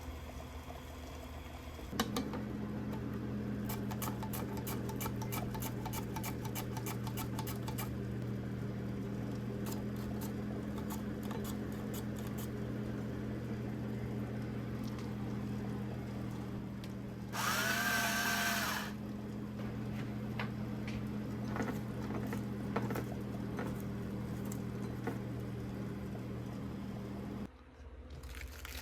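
A small electric kitchen appliance motor, such as a mixer or blender, switches on about two seconds in and runs with a steady hum for about 25 seconds before cutting off sharply. Light clicks sound over it, and a brief wavering higher tone comes a little past the middle.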